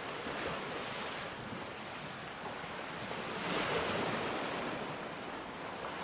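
Sea waves breaking and washing on the shore over a steady hiss: a small surge about half a second in and a larger one about three and a half seconds in.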